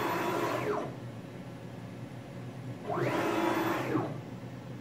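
NEMA-34 stepper motors driving a CNC router's X axis in rapid moves at 1000 inches per minute. The motors give a whine that rises in pitch as the axis accelerates and falls as it slows, once ending about a second in and again from about three to four seconds in. This is the backed-off maximum speed, set well below the 1,600 in/min where the motors lost steps.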